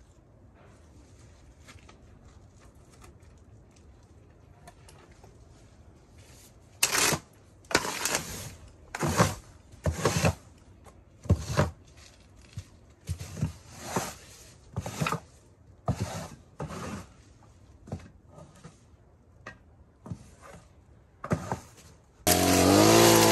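Broom sweeping debris off wooden deck boards: brisk scraping strokes about once a second, starting around seven seconds in. Just before the end a string trimmer's motor starts running loudly.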